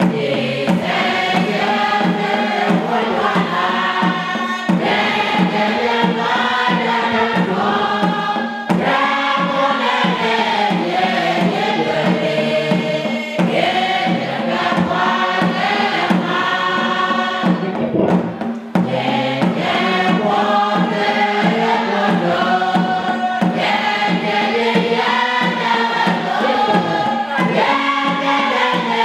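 A women's church choir singing together in phrases that rise and fall, over a steady beat.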